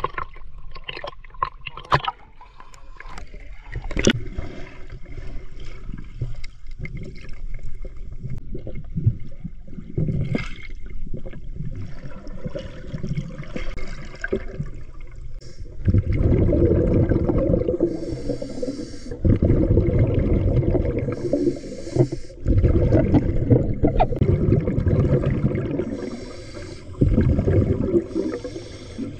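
Water splashing and sloshing at the surface, then muffled underwater rushing and bubbling as a diver swims with fins. Sharp splashes come in the first few seconds; from about halfway the muffled rushing grows louder and comes in long stretches with short breaks.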